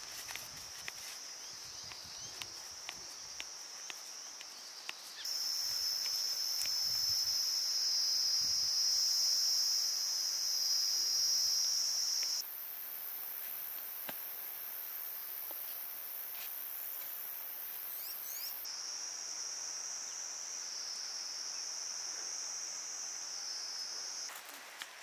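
Outdoor insect chorus: a steady, high-pitched chirring drone that shifts abruptly in pitch and loudness three times. A few light clicks in the first five seconds.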